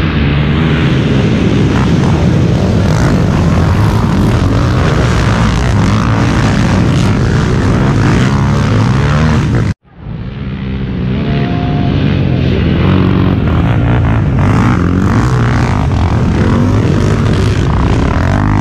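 Racing quad (ATV) engines running hard, their pitch rising and falling with throttle and gear changes, several engines overlapping at once. The sound cuts out abruptly about ten seconds in, then returns and builds back up.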